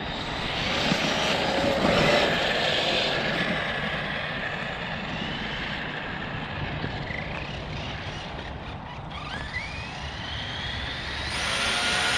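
Losi 3XL-E electric RC car's Hobbywing 2250kv brushless motor whining as it accelerates, its pitch rising in sweeps a few times, over a steady rushing noise.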